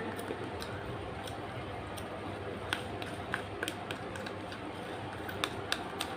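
Eating sounds: irregular small clicks and smacks of chewing over a steady background hiss.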